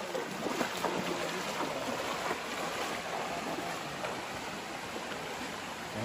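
Shallow rocky hill stream flowing, a steady rush of water, with occasional splashes from people wading through it.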